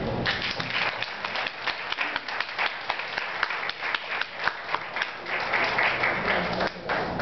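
Audience applauding, a dense patter of hand claps that stops near the end.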